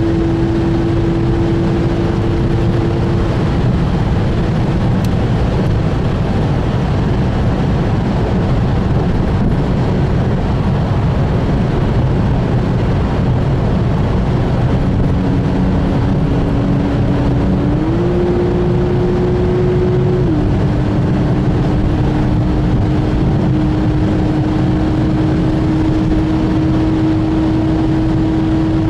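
Cabin noise of a Porsche 911 GTS cruising at Autobahn speed: a steady drone from its flat-six engine over heavy tyre and wind rumble. About two-thirds of the way in, the engine note steps up briefly, then settles back to a steady tone.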